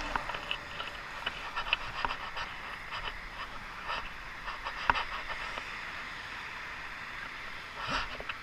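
Steady hiss of road traffic on a busy roadside, with scattered light clicks and ticks close to the microphone. A louder swell near the end, as a vehicle passes.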